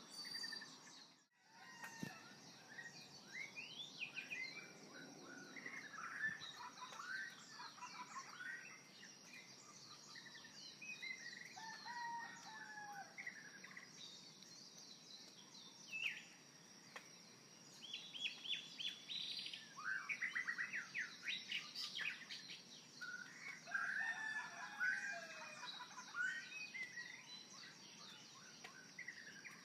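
Small birds chirping and singing, many short calls and quick pitch glides overlapping, busiest in the second half, over a faint steady high tone.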